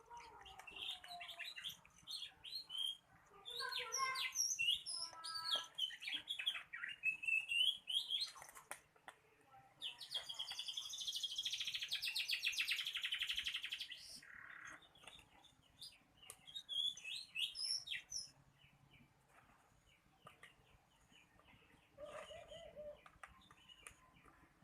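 Small birds chirping: many short, high, sliding chirps, busiest in the first nine seconds and again in bursts later. Around the middle, a steady hissing rattle runs for about four seconds.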